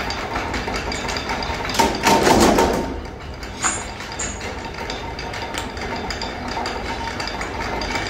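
Flywheel-driven mechanical power press running steadily, with one loud stroke about two seconds in and a shorter knock about a second after it.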